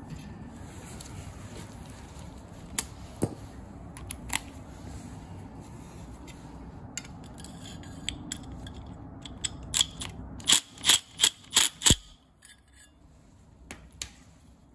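Hex driver tightening the set screw on a furnace inducer fan wheel hub: scattered metal clicks, then about six sharp knocks in quick succession, roughly three a second, near the end as the screw is driven home.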